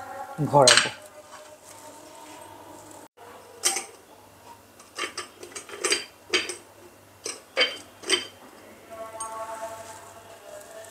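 Drinking glass being rimmed in a sugar-and-salt mix on a china plate: about eight light clinks and scrapes of the glass rim against the plate over some five seconds.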